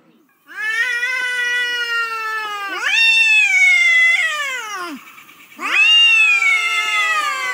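Cat yowling at another cat in a face-off: three long, drawn-out wailing calls, each rising and then slowly sinking in pitch. It is the warning yowl of a territorial standoff.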